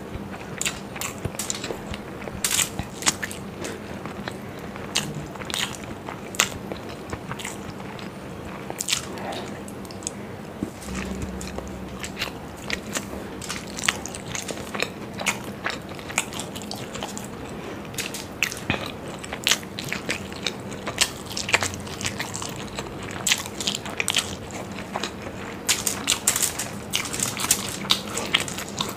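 Close-miked chewing of masala-fried hard-boiled eggs, with many sharp, irregular mouth clicks and smacks.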